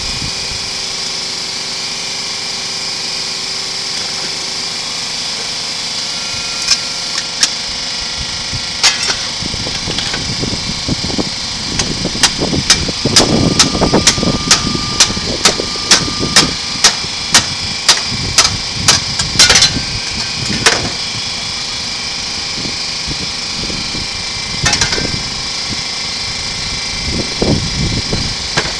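Repeated sharp metal clanks as a cut-open scroll compressor's steel shell is knocked against a steel bench to work the motor loose. They come singly at first, then about two a second for several seconds in the middle, then a few more near the end. Under them runs a steady mechanical hum.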